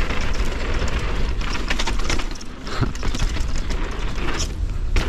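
A 170 mm enduro mountain bike clattering down rough singletrack, with dense, rapid clicks and knocks from the bike over a steady wind rumble on the GoPro microphone.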